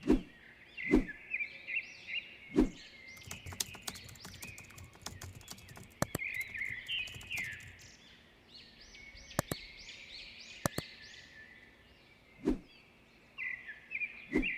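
Birds chirping and singing in quick repeated phrases, with a few heavy thumps and two runs of sharp clicks.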